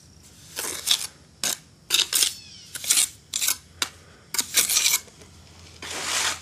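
A dozen or so short gritty scrapes in quick, irregular succession: wet cement and grit pushed and rubbed by hand into the joints between flagstones.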